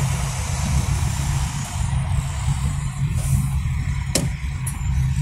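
Steady low rumble of a car's engine and tyres in slow city traffic, heard from inside the cabin, with a single sharp click about four seconds in.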